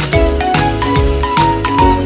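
Upbeat background music with a steady beat and a bright melody.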